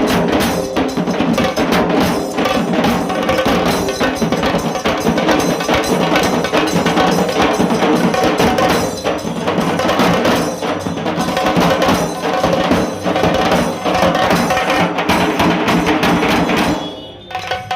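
Dhol tasa drum band playing a fast, dense rhythm of rapid stick strokes on tasa kettle drums over dhol barrel drums. The playing drops off suddenly about a second before the end.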